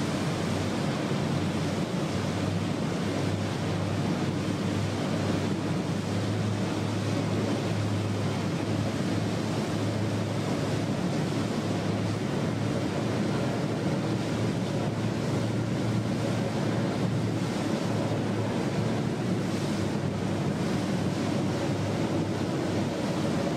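Speedboats running flat out on open water: a steady rush of water and wind, with a constant low engine drone underneath.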